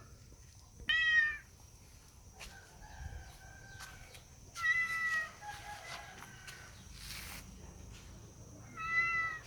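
A cat meowing: three short, high calls about four seconds apart, with fainter mews in between.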